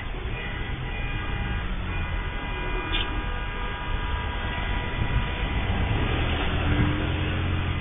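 Steady low vehicle rumble with a few faint steady whining tones above it, growing a little louder near the end.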